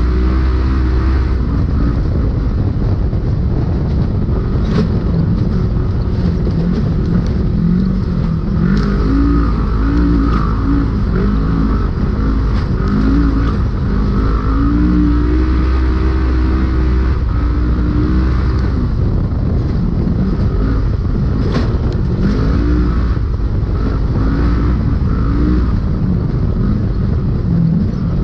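Polaris UTV engine under race load, heard from inside the cab. Its pitch keeps rising and falling as the throttle comes on and off, over a constant low rumble, with a few sharp knocks.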